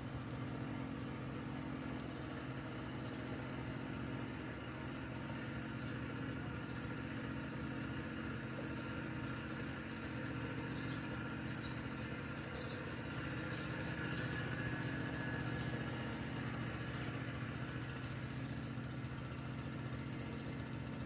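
Steady low mechanical hum, as from a running motor, with a few faint ticks over it.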